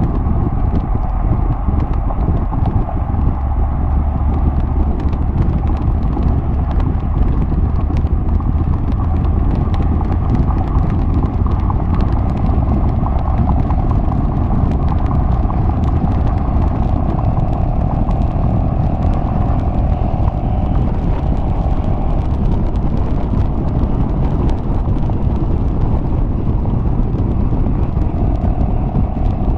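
Exhaust of a 2011 Mercedes-Benz G55 AMG's supercharged 5.4-litre V8 cruising at steady highway speed, picked up right beside the side-exit exhaust: a deep, steady drone that holds an even level throughout.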